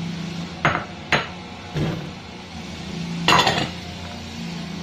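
Cut apple and carrot pieces tipped into a plastic blender jar: a few separate knocks, then a louder clatter about three seconds in, over a steady low hum.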